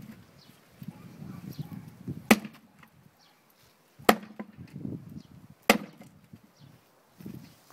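Axe splitting firewood: three sharp chops into a log, about a second and a half apart, with quieter clatter between the strikes.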